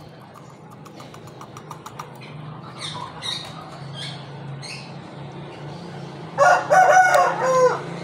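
A rooster crows once near the end, loud and drawn out with a falling tail. Before it there are a few light clicks and faint high chirps.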